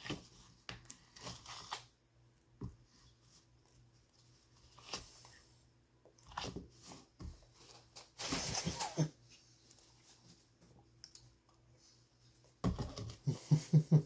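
Close-miked eating of ice cream with cookie pieces: a spoon clicking and scraping in the bowl, with chewing and crunching between bites. There is one long slurp from the spoon a little past halfway through, and a louder run of mouth noises near the end.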